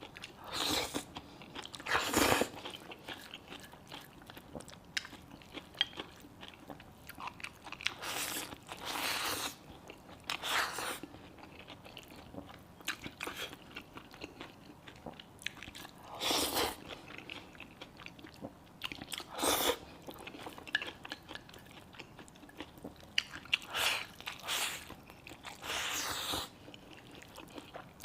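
A person eating close to the microphone: steady chewing and biting with small crunches, and louder noisy bursts every few seconds.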